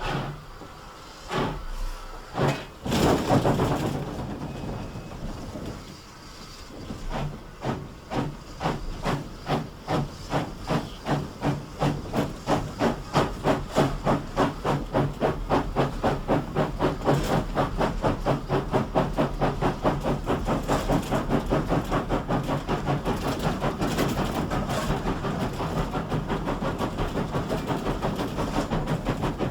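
GWR Collett pannier tank steam locomotive no. 6412 blowing off a few loud hisses of steam, then starting away. Its exhaust beats begin slow and grow steadily quicker, to about three or four beats a second.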